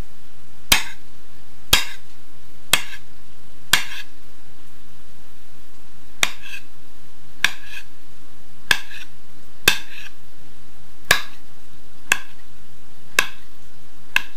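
Kitchen knife chopping beetroot, the blade knocking sharply on a wooden cutting board about once a second, a dozen strokes with a short pause partway through.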